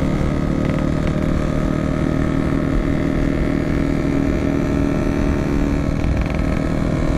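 Yamaha RX-King's 135 cc two-stroke single-cylinder engine running on the road at a steady, unchanging pitch.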